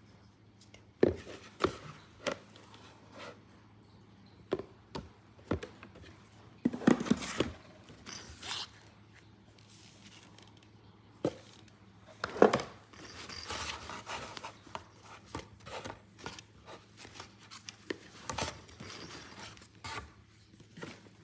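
Intermittent taps, knocks and scraping of small objects being handled and knocked about, with a few louder knocks about a second in, around seven seconds in and around twelve seconds in, and rustling between them.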